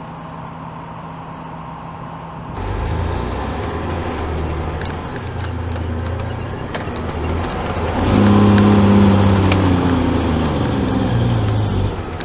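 Western Star 6900XD dump truck's diesel engine running with the engine retarder on, holding the truck back on a steep downgrade. It is fairly quiet at first, grows much louder about two and a half seconds in, and is loudest over the last four seconds.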